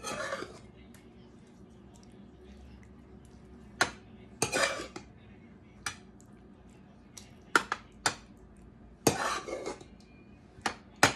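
Metal serving spoon and spatula scraping and knocking against a metal saucepan and a metal baking pan while a meat mixture is scooped and spread: short, irregular clinks and scrapes, a few seconds apart at first and closer together later.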